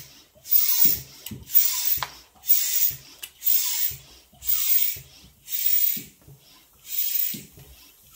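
A balloon hand pump inflating a long latex balloon, each stroke a short hiss of air, about one a second in a steady rhythm.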